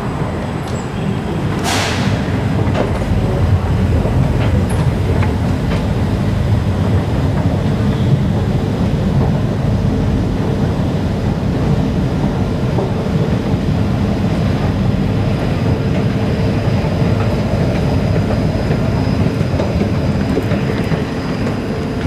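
Escalator machinery rumbling steadily with the clatter of its moving steps while it is ridden up from the metro platform, with a faint steady hum joining about a third of the way in. A short sharp hiss sounds about two seconds in.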